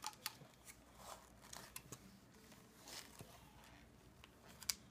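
Faint, scattered clicks and crackles of a clear plastic shell being handled around a giant chocolate egg, with one sharper click near the end.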